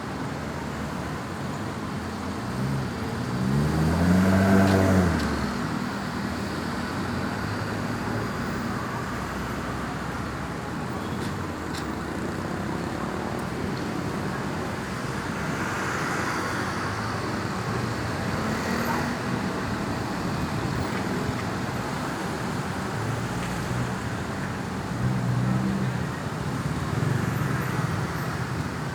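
Road traffic going by steadily. About four seconds in, one vehicle passes close and loud, its engine note rising, and a fainter vehicle passes around the middle.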